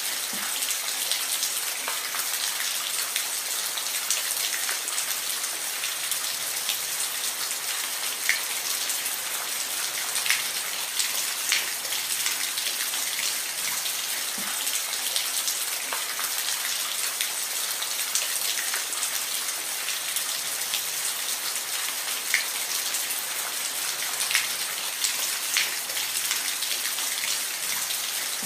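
Steady rain falling, a dense even hiss with scattered individual drops ticking and splatting close by.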